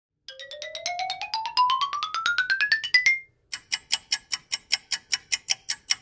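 Electronic sound effect: a fast pulsing tone climbs steadily in pitch for about three seconds. After a brief gap comes an even run of bright ticks, about seven a second.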